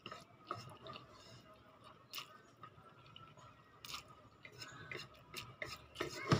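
A person chewing mouthfuls of instant noodles eaten with chopsticks, with scattered short clicks and a louder knock near the end.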